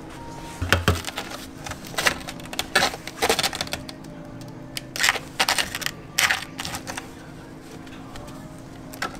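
Stainless lever-type ice cream scoop scraping and digging through hard-frozen strawberry ice cream in a plastic tub: a series of irregular gritty scrapes and clicks, the last of them about two-thirds of the way in.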